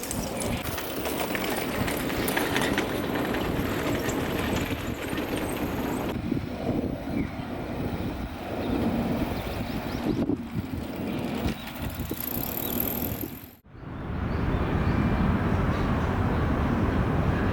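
Outdoor city ambience with traffic noise, changing abruptly a few times, with a brief drop to near silence about three quarters of the way through.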